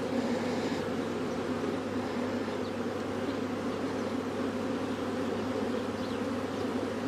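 Honeybees from a recently hived swarm buzzing en masse, a dense, steady hum.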